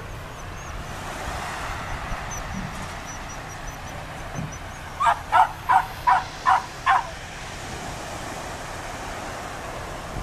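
A dog barking six times in quick succession, about three barks a second.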